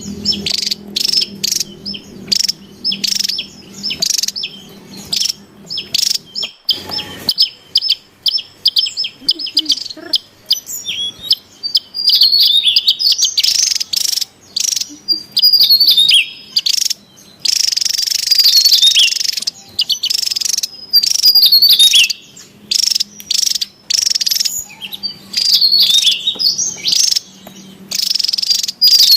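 Javan tesia singing: a fast, busy run of short, high chirping notes and quick slurred whistles, with a harsher, buzzier stretch of calling a little past the middle.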